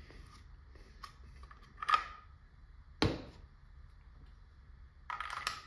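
A few short clicks and scrapes from a CO2 cartridge being fitted into an air-powered less-lethal launcher, with one sharp knock about three seconds in and a short rush of noise near the end.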